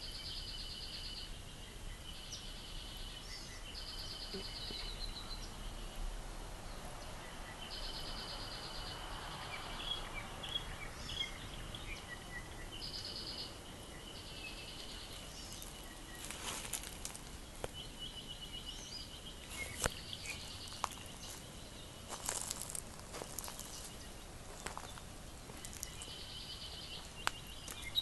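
Forest ambience: a high, rapid trill of about a second repeats every few seconds over a steady high-pitched tone, with scattered chirps. Sharp clicks and rustles come in the middle.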